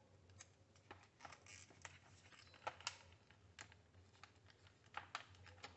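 Faint, scattered small clicks and taps of hands working a hand mixer's wiring as a cable is disconnected, over a low steady hum.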